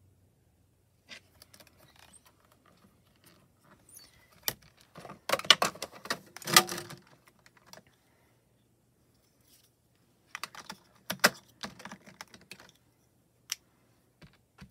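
Irregular plastic clicks and taps from handling rubber-stamping supplies: small ink pad cases and a stamp-positioning platform. The taps come in a busy flurry around the middle and another a few seconds later.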